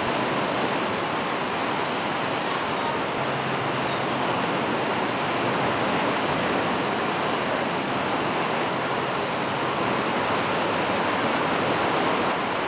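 Steady rushing noise of rough open sea and wind, with no separate events. A faint low hum joins it for a couple of seconds about three seconds in.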